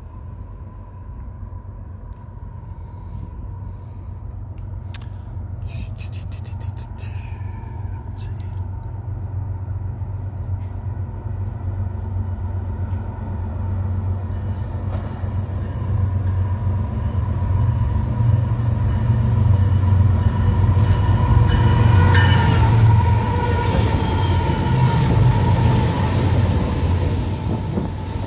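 BNSF diesel freight train approaching on the near track and passing: a low locomotive rumble that grows steadily louder as it nears, then double-stack container cars rolling past near the end.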